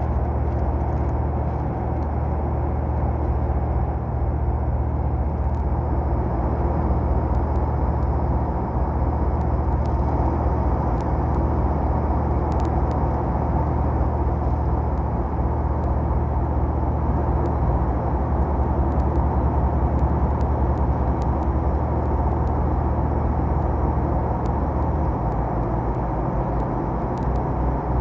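Steady, unbroken drone of propeller aircraft engines in flight, heavy in the low end.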